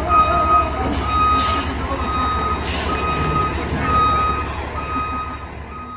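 A fire engine's back-up alarm beeps about once a second, each beep a single steady tone, over the low steady running of the truck's engine. Two short hisses come about one second and two and a half seconds in.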